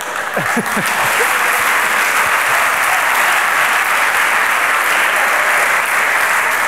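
Theatre audience applauding, the clapping swelling up in about the first second and then holding steady, with a few voices near the start.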